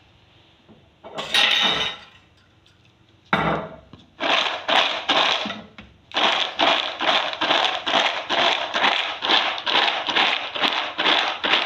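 Peanuts being mixed with sugar syrup in a bowl, the nuts and utensil clattering against the bowl. A short clatter comes about a second in and a knock at about three seconds, then a steady run of rhythmic stirring strokes, about three or four a second.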